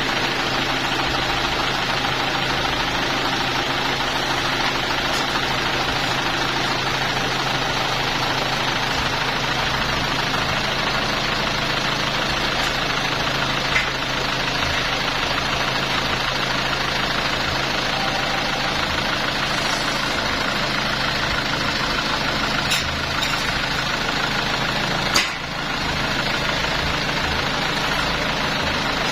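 Sawmill machinery running steadily, a constant engine-like drone, with a few short knocks.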